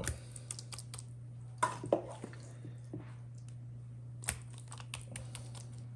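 A plastic measuring cup scooping and knocking out mashed sweet potato into a glass baking dish: soft squishing with scattered light taps and scrapes, the loudest around two seconds in and again past four seconds, over a steady low hum.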